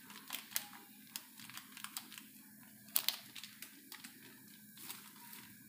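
Plastic spice packet crinkling as it is handled and tipped, with scattered sharp crackles, the loudest about three seconds in.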